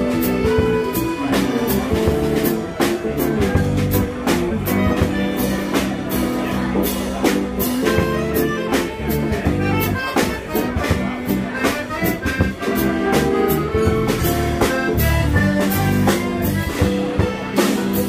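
Small band playing live: drum kit with steady drum and cymbal hits under sustained accordion and keyboard notes, with electric guitar.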